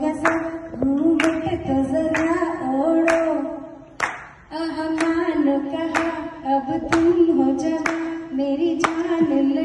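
A woman singing a slow melody into a handheld microphone, with hands clapping a steady beat about once a second. The singing breaks off briefly about four seconds in.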